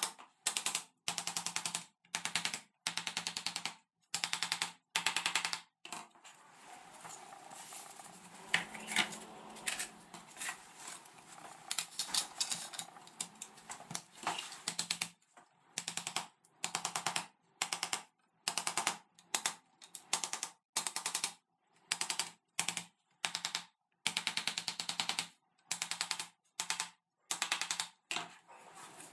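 Small wooden hammer tapping laser-cut plywood box panels together to seat their finger joints, in short runs of rapid taps with brief pauses between. In the middle stretch the taps give way to a softer, continuous rubbing and scraping as the panels are pushed together by hand.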